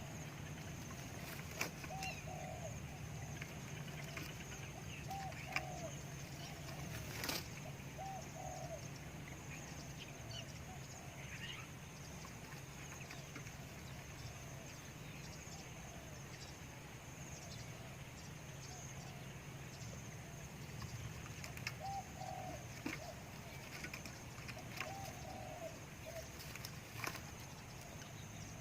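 Spotted dove cooing in short, faint repeated phrases. One run of coos comes in the first eight seconds, then a long pause, and another run from about 21 seconds in. A sharp click about seven seconds in.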